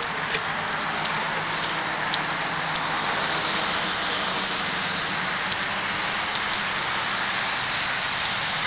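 Steady hiss of falling water, with scattered drips ticking and a faint low hum underneath.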